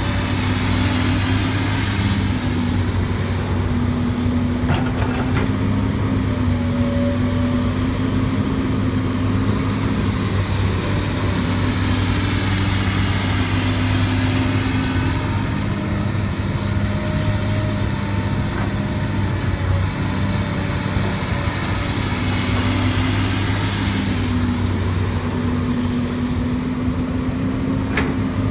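Heavy diesel engine of earthmoving equipment running steadily, its pitch shifting a little now and then, with a couple of brief knocks.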